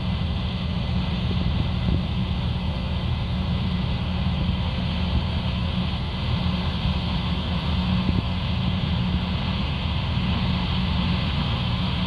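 Tracked Case IH 9240 combine harvesting corn: its diesel engine and threshing machinery run with a steady low drone.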